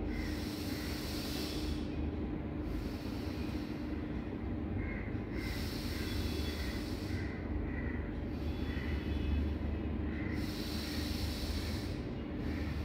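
Slow, deep breaths in and out through the nose, about five or six long hissing breath sounds one to two seconds each: normal bhastrika pranayama breathing, done as the warm-up before kapalbhati.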